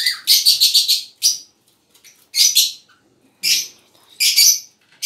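Pet cockatiels and lovebirds in an aviary calling in short, shrill bursts of chatter, about five of them with brief pauses between.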